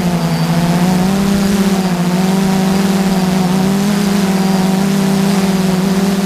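Multirotor drone's electric motors and propellers humming steadily, heard from the camera riding on it, the pitch wavering slightly as the throttle shifts.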